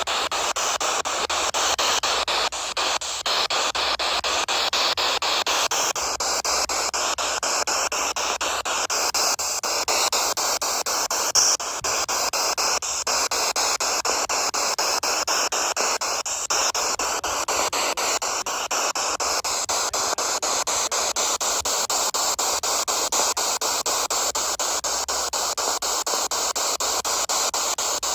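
Radio static from a PSB7 spirit box sweeping through stations: a steady hiss chopped by the rapid scanning, with a short pop about eleven seconds in.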